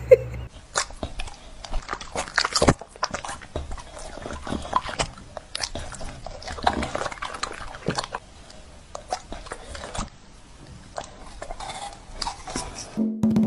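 A bully-breed dog chewing and crunching apple slices fed to it from a fork, a run of irregular crunches and clicks. A short soft bark at the very start.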